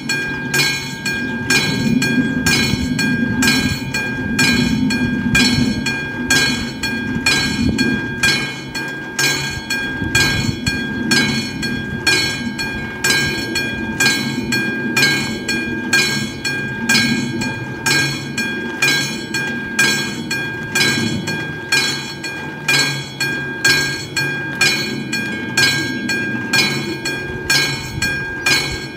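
Level-crossing warning bell striking steadily, a little more than once a second, each strike a ringing metallic ding: the crossing's warning signal is active. A low rumble lies beneath it in the first half and fades away.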